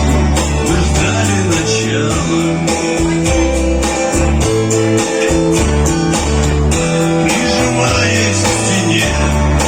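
Song played on guitar over changing bass notes and a steady beat.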